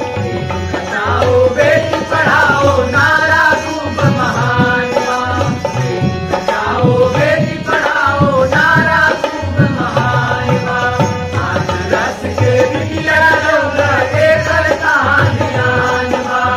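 A lead singer and chorus singing a Bhojpuri folk song together, accompanied by harmonium, tabla and dholak with a steady drum rhythm.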